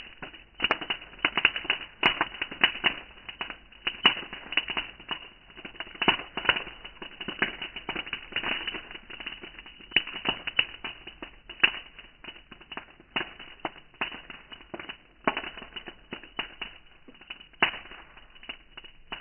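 Bonfire crackling: wood burning with dense, irregular snaps and pops, some much louder than others.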